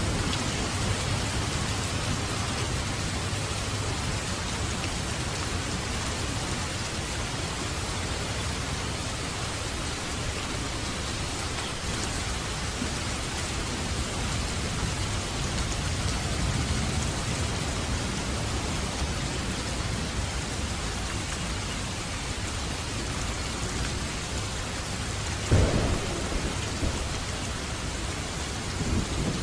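Steady heavy rain with low, rolling thunder swelling in and out. A sudden sharp crack stands out about 25 seconds in, followed by a couple of smaller knocks.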